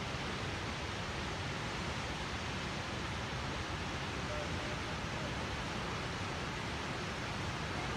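Steady, even rush of the American Falls at Niagara Falls, a huge volume of water pouring over the brink and crashing onto the rocks below.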